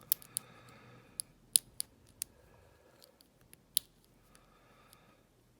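Lock pick and tension wrench working inside a Yale High Grade pin tumbler padlock: light scraping of the pick over the pins with about eight sharp, irregular metallic clicks, the loudest about a second and a half in.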